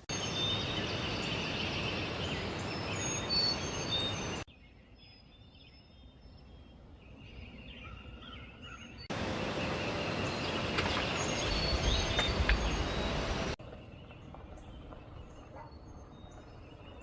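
Outdoor ambience: birds chirping over a steady noisy hiss. It comes in abruptly cut stretches, louder and noisier about a second in to four seconds and again from about nine to thirteen seconds, quieter in between and near the end.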